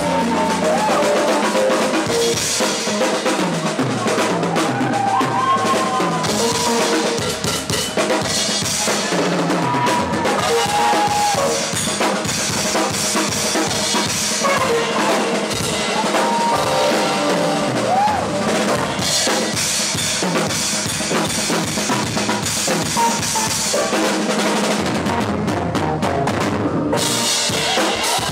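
Live acoustic drum kit played hard: rapid snare and tom strokes, bass drum and cymbals, with fills that step down through the toms.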